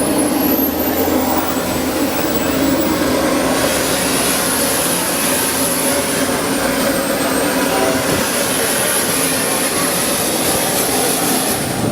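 Jet turbine engine running, a loud steady roar under a high-pitched whine that climbs, dips briefly and climbs again as it spools up.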